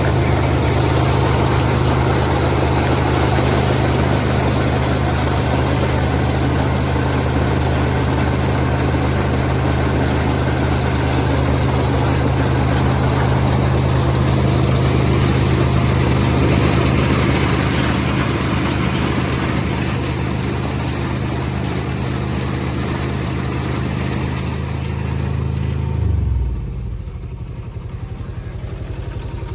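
Kubota ER211 combine harvester running steadily with its engine and machinery going; about 26 seconds in the pitch and level drop as it slows down, and it keeps running more quietly.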